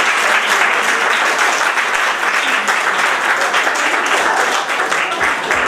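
A small audience applauding: steady clapping from many hands, easing slightly near the end.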